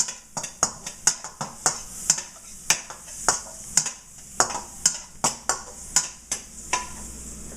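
A cooking utensil stirring shiitake mushrooms in a frying pan: irregular clicks and scrapes against the pan, two or three a second, over a faint sizzle of the butter frying them.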